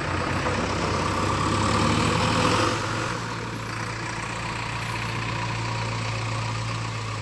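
Heavy diesel engine running steadily at low revs, with extra rushing noise over the first three seconds that then dies down.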